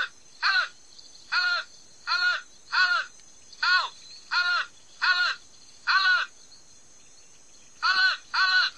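Marmot giving a rapid series of short, harsh alarm calls, about one to two a second, with a pause of about two seconds near the end. The calls are played through a tablet's speaker.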